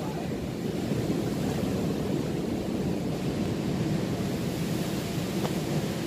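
Big waves surging and breaking on a rocky shore in a steady wash, with wind rumbling on the microphone.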